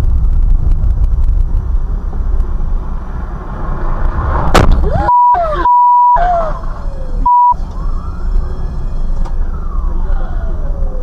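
Steady engine and road rumble from a car, with an emergency vehicle's siren wailing, slowly rising and falling. About halfway through, a steady beep tone comes in twice, with the sound cut out around it.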